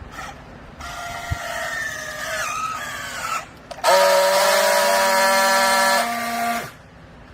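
Hydraulic baler's pump whining under load, in two stretches: first a whine whose pitch sags slightly, then, after a short break, a louder steady whine that cuts off near the end.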